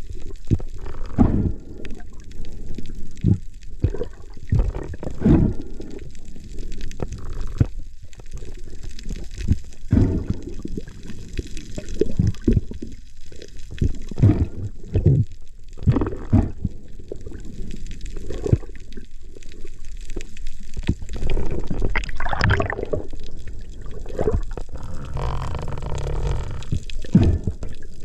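Muffled underwater rush and slosh of water around an underwater camera housing, coming in irregular surges every second or two.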